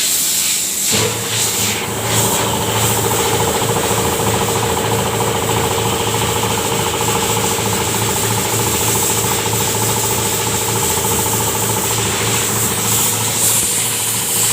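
A hiss, then about a second in an electric compressor machine starts and runs steadily with an even, fast chugging pulse.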